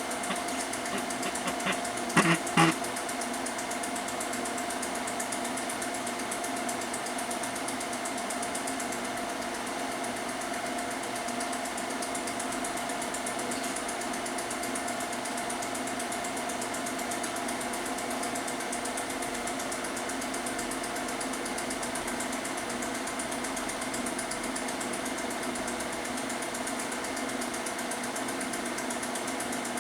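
A steady mechanical whirr, with a few sharp clicks about two seconds in.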